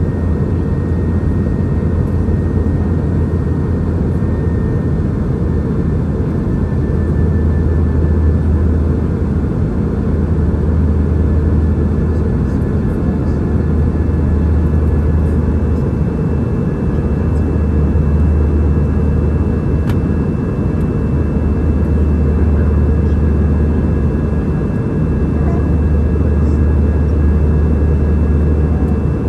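Airliner cabin noise: a loud, steady low rumble from the engines and airflow, with a faint high whine held steady over it.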